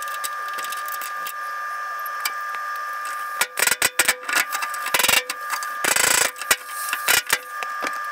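Pneumatic air chisel hammering away rusted sheet metal on a truck's tail panel. A steady mechanical whine runs underneath, and about three and a half seconds in, loud bursts of chiseling come in short spurts, loudest around five to six seconds in.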